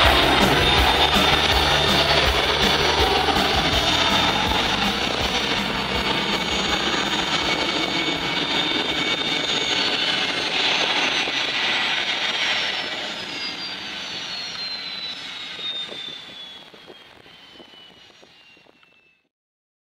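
Embraer Phenom 300 business jet's twin Pratt & Whitney PW535E turbofans at takeoff power as it climbs away: a steady jet noise with a high turbine whine that slowly falls in pitch while the whole sound fades out near the end. A rock music beat lies underneath at the start.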